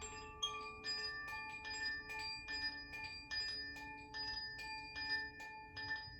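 Makino-style healing chimes struck one note at a time in a slow melody, about two strikes a second, each bright metallic note ringing on and overlapping the next.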